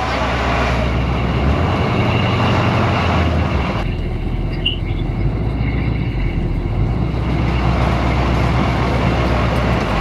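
1984 Blue Bird Wanderlodge bus's diesel engine running with a steady low rumble.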